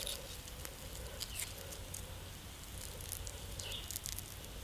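Faint, scattered small clicks and crackles of fingers pulling apart cooked fish, crisp skin tearing off the flesh.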